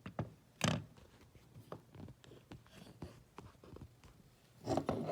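Small metallic clicks and knocks from an SQT 2048 multitool being handled as its folded tools are pried open, with one sharper click under a second in and a louder rustle of handling near the end.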